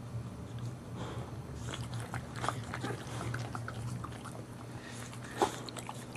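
Boxer mother dog licking and chewing at her newborn puppy and its birth sac: scattered wet mouth clicks and smacks, one sharper click about five seconds in, over a low steady hum.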